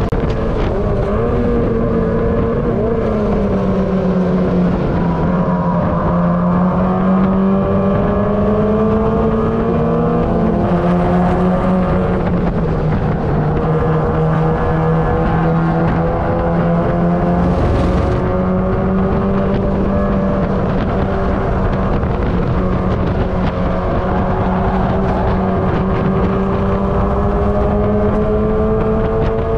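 Mazda MX-5 race car's four-cylinder engine heard from on board under racing load. The engine note climbs slowly through long pulls and drops in pitch a few times, near four seconds in and again around ten to thirteen seconds, as the driver lifts or shifts. Wind and road noise run underneath.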